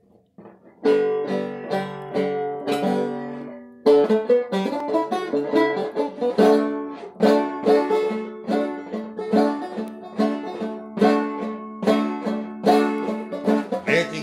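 Banjo played solo in old-time style. A few plucked notes and chords come in about a second in, with a chord left ringing and fading. From about four seconds in it settles into a steady picked rhythm.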